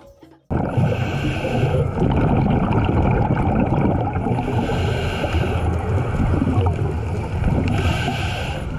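Scuba diver breathing underwater through a regulator: a loud bubbling rumble that starts abruptly, with an inhaled hiss swelling about every three seconds.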